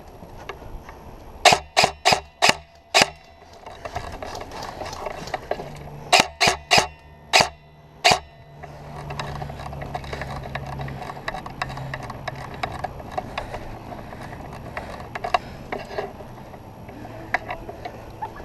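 Airsoft gun firing single shots in quick strings: about five sharp cracks about a second and a half in, and about six more between six and eight seconds in. Fainter clicks and rustling follow.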